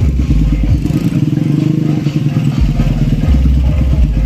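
Deep bass from a large outdoor sound system's subwoofers, coming and going in long stretches, under motorcycle engines running close by.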